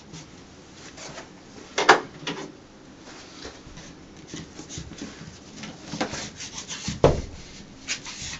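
Peel-and-stick wall mural being pushed onto the wall and tucked in: irregular rubbing and scraping, with a louder scuff about two seconds in and another about seven seconds in.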